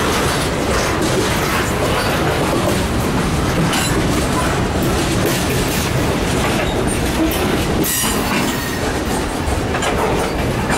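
Freight cars of a slow-moving train rolling past close by: a steady rumble of steel wheels on the rails, with repeated clacks over the rail joints.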